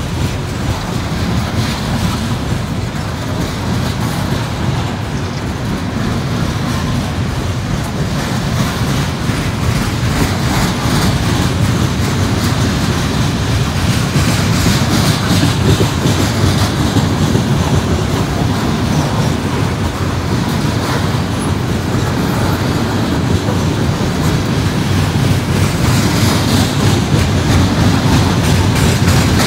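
Loaded coal hopper cars of a long freight train rolling past, steel wheels rumbling and clicking over the rails, growing louder as the train gathers speed after a dead stop.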